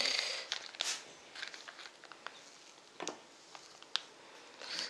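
A foil retort curry pouch crinkling as it is handled and torn open, with a few short sharp crackles.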